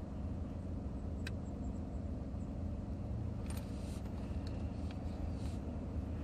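A steady low hum with a few faint, short clicks scattered through it.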